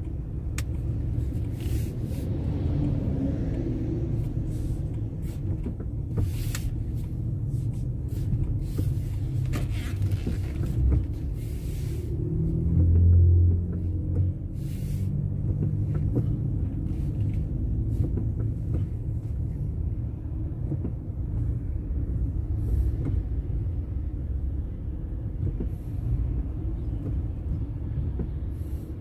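Low, steady rumble of a car's engine and road noise heard from inside the cabin while moving slowly in traffic, with scattered light clicks in the first half and a louder low bump about 13 seconds in.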